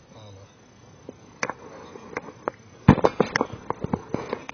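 Handling noise right on the camera: a run of about a dozen sharp, irregular knocks and taps, the loudest about three seconds in.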